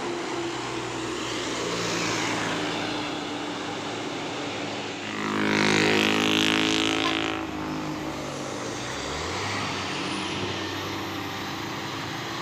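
Road traffic on an uphill road, with engines running under load. A large vehicle's engine passes close from about five to seven and a half seconds in, the loudest part, then fades to a steady background hum.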